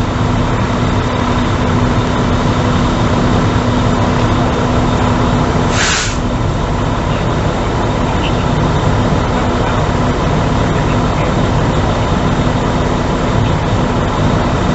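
Large truck engine, likely a fire engine on scene, idling steadily with a constant low hum. A short, sharp hiss of air cuts in about six seconds in.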